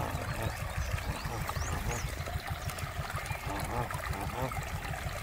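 Water from a garden hose running into a flooded armadillo burrow, a steady trickling and gurgling.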